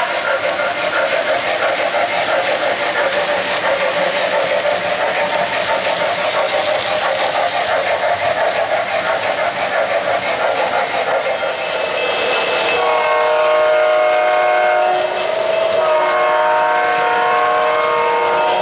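O-gauge model N&W coal hopper cars rolling over three-rail track with a steady clatter. About twelve seconds in, a train horn sounds two long chord blasts.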